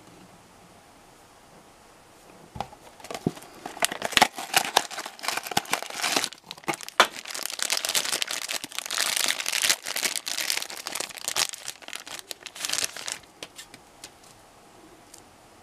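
A shiny black foil blind bag being crinkled and torn open by hand to free a vinyl mini figure. The dense, irregular crackling starts a couple of seconds in and stops shortly before the end.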